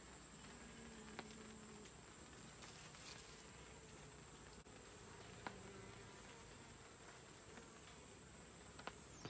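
Faint buzzing of bees at the entrance of a wooden box hive, a low hum that swells briefly near the start and again about halfway through, over a steady high-pitched whine. A few faint clicks.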